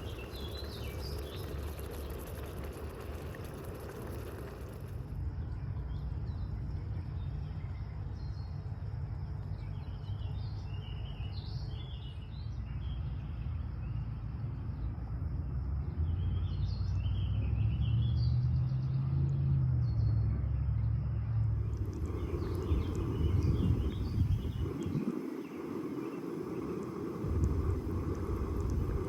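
Small birds chirping in short twittering phrases over a steady low outdoor rumble; the background changes abruptly twice.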